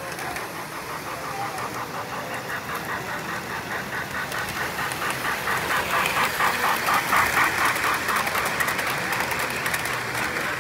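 Model steam train running past on a three-rail layout: a fast, even rhythmic clatter that grows louder as it passes, loudest about seven seconds in, then fades.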